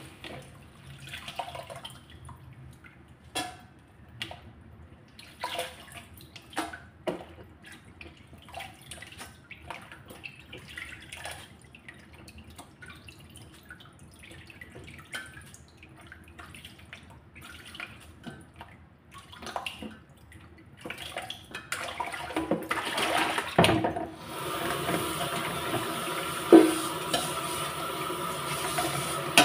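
Wet Brazilian spinach leaves being handled in a stainless steel colander, with scattered small clicks and rustles. About 22 seconds in, a kitchen tap starts running steadily into the bowl, and near the end a sharp metallic knock sounds as the colander meets the bowl.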